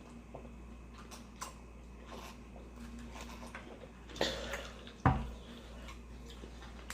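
Close-miked eating sounds of nacho dip: faint wet chewing, lip smacks and small clicks. There is a louder rustle about four seconds in and a single sharp thump a second later.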